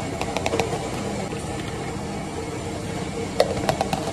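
Steady background hum of machinery, with light clicks and knocks of plastic as nata de coco is scooped out of a plastic jar with a plastic cup: a few near the start and a cluster near the end.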